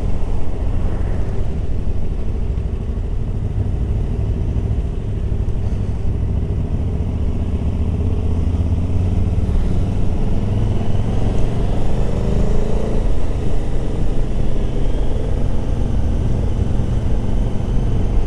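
Motorcycle engine running under way on the road, with a steady low rumble; about ten seconds in the engine note rises as the bike accelerates.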